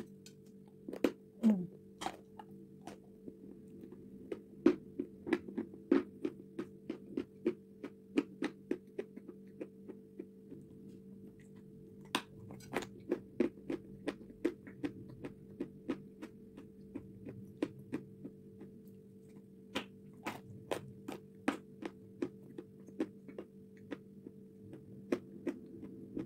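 Close-miked crunching and chewing of a marshmallow coated in hardened chocolate paste: a string of sharp, crisp crunches coming in bursts, over a steady electrical hum.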